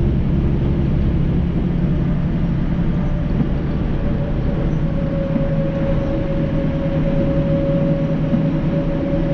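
Steady engine and road hum inside a moving lorry's cab, with a thin steady whine that comes in about three seconds in.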